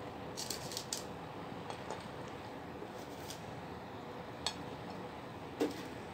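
Light clicks and taps of baked cookies being picked off a paper-lined baking tray and set down on a plate, a handful in the first second, then scattered single ones, the sharpest near the end, over a faint steady hum.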